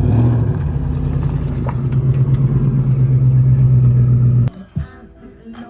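A car engine running loudly with a steady low drone that builds slightly, then cuts off abruptly about four and a half seconds in, with music after it.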